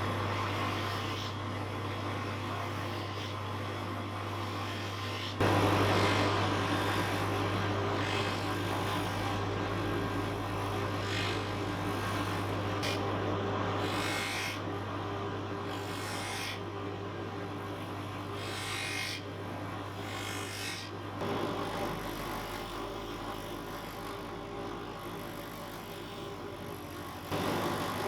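A small electric bench tool running: a steady low motor hum under a hiss of working noise, with abrupt jumps in level about five seconds in and again near the end.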